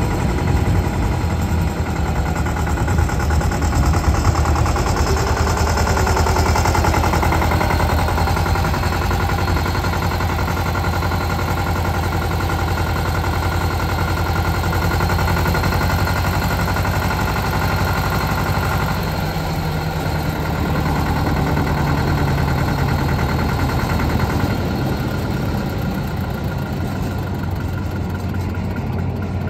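Eicher 364NC tractor's diesel engine running steadily as the tractor drives slowly, the engine note shifting a little about two-thirds of the way through.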